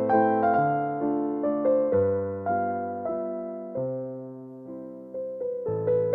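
Background music: a gentle piano melody over bass notes, each note struck and fading away.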